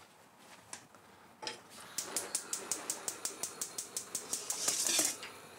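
Gas hob's electric igniter clicking rapidly, about seven clicks a second for some three seconds, ending in a short rush as the burner catches. Before it, a single knock as the pot is set on the hob.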